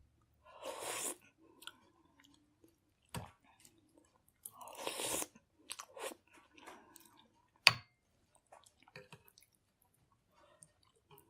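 A person eating chicken soup: two longer slurps about a second and about five seconds in, with chewing between and several sharp clicks, the loudest a little before eight seconds in.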